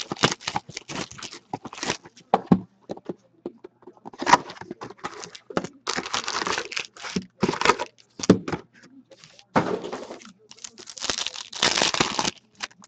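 A cardboard hobby box of hockey cards being opened, and foil card packs handled and torn open: a run of short crinkling, crackling rustles with brief pauses between them.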